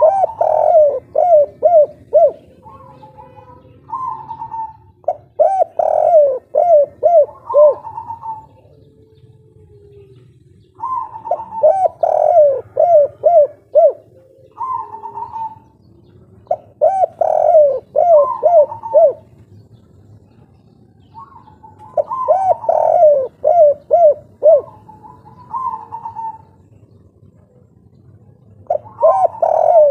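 Spotted dove (derkuku/tekukur) singing its 'kuk 3' cooing song, about six phrases, one every five seconds or so. Each phrase is a quick run of four or five falling coos, with a short higher coo before and after it.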